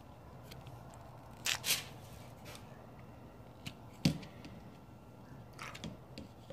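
Faint handling sounds as a metal marinade injector is worked into a raw turkey on a foil-lined pan: two short rustles about a second and a half in and a sharp click about four seconds in, with a few light ticks.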